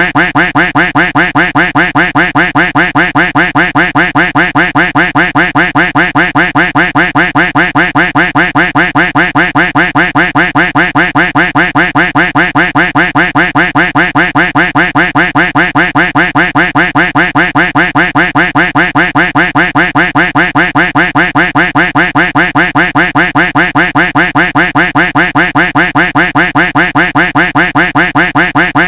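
Duck quack sound effect on a loop, quacking over and over in rapid, evenly spaced repeats with no change.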